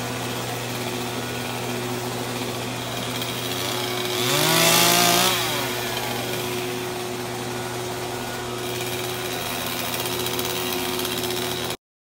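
Motorised pole saw running among branches overhead, with a steady pitch; about four seconds in it revs up briefly, louder and rising in pitch, then drops back.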